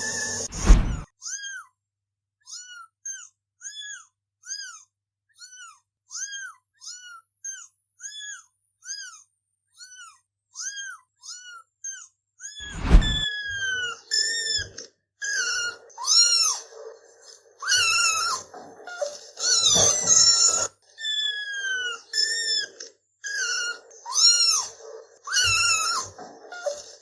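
Kittens mewing: a rapid series of short, high-pitched mews, about one and a half a second. After a sharp click about halfway through come louder, longer mews, some overlapping.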